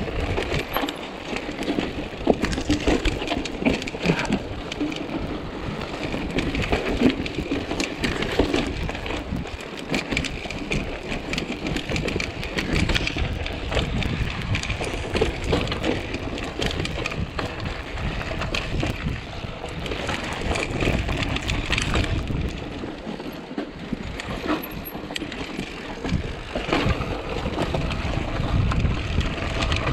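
Mountain bike riding over a rocky dirt trail: tyres crunching over dirt and stones, and the bike rattling and knocking over the bumps. A steady low rumble of wind on the microphone runs underneath.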